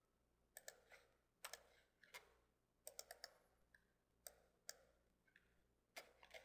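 Faint computer mouse button clicks, about a dozen and a half, often two or three in quick succession, over a low steady hum.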